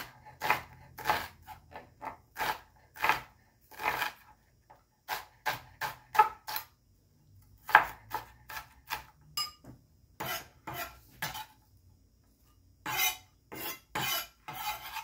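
Chef's knife chopping onion on a plastic cutting board: separate clacks of the blade on the board at an irregular pace, with two short pauses. Near the end, a quicker run of longer strokes as the blade scrapes the diced onion together.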